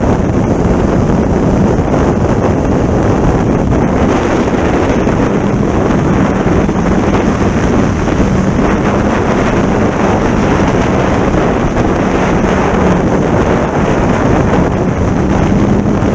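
Wind blowing hard across the microphone: a loud, steady rushing noise with a faint low hum underneath.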